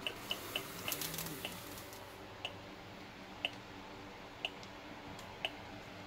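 Gigahertz Solutions NFA 1000 field meter ticking from its speaker, the tick rate following the magnetic field reading: a few quick ticks in the first second and a half, then a steady one tick a second. The slow rate signals a low field from the fan motor with three layers of cobalt alloy shielding sheet in place.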